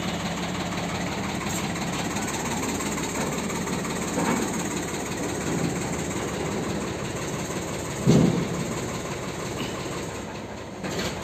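An engine idling steadily, with a smaller knock about four seconds in and a single loud thump about eight seconds in.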